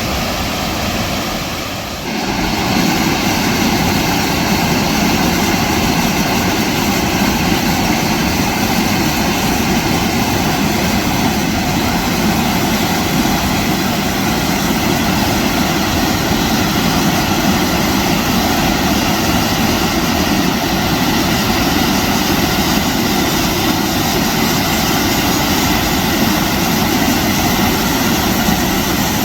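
Waterfall rushing in a loud, steady roar of falling water, stepping up in loudness about two seconds in.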